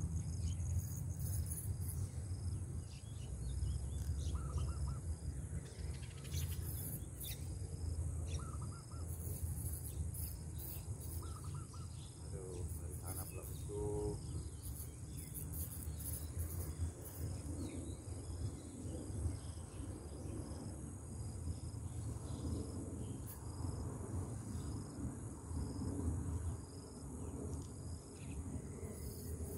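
Riverside insects chirping steadily, with a high chirp that repeats about once a second over a continuous high buzz. A few short bird chirps come through, over a low steady rumble.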